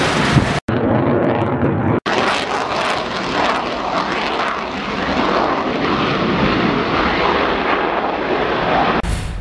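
Fighter jet engine noise, broken twice by short cuts in the first two seconds. From about two seconds in it is a steady, loud jet sound whose tone slowly sweeps and shifts as the aircraft flies past low.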